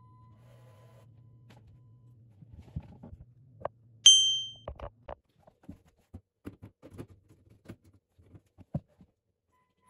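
A single bright chime rings out and fades about four seconds in, over a steady low hum that stops soon after. Then a run of short, light clicks and knocks as hands handle the plastic basket and LEGO parts.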